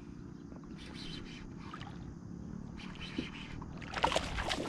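A black bass splashing and thrashing at the water's surface about four seconds in as it strikes the lure and is hooked, after a few seconds of faint low rumble.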